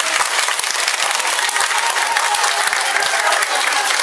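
A crowd applauding, many hands clapping together steadily.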